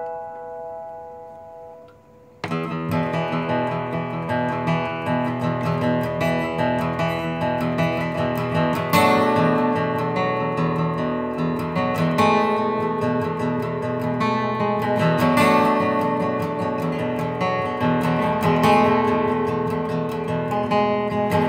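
Steel-string acoustic guitar playing a song's instrumental intro: a chord rings and fades for about two seconds, then steady rhythmic chord playing begins and carries on.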